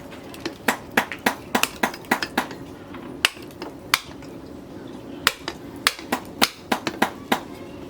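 Hand hammer striking steel rebar being forged into a knife blade: a quick, irregular series of sharp metallic blows, some in rapid clusters.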